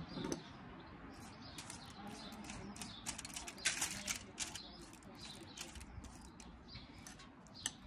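Basting brush dabbing and swiping barbecue sauce onto smoked lamb ribs on foil: soft, irregular wet swishes and taps, with a louder rustle a little over halfway through.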